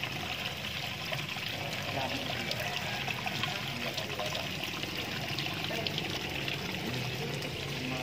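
Water pouring and trickling steadily into a koi pond.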